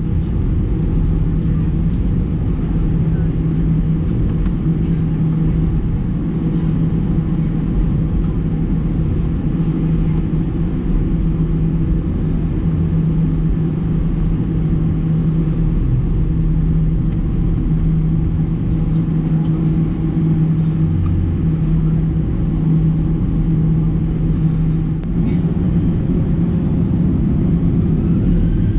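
Airbus A320-214's CFM56 jet engines at taxi power, heard inside the cabin beside the wing as a steady low rumble with a steady hum. Near the end a rising whine begins.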